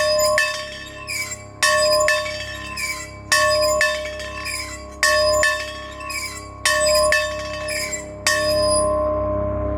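A bell rung by hand, struck six times about every one and a half to two seconds, each stroke ringing on and fading before the next.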